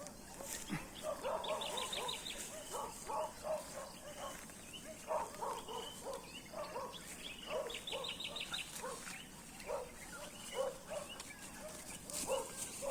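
Faint animal calls: many short, repeated pitched calls, with a quick high chattering run twice.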